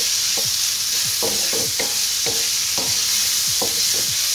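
Chicken pieces sizzling in hot oil in a wok, with a wooden spatula scraping and turning them over and over, about two to three strokes a second, under a steady high sizzle.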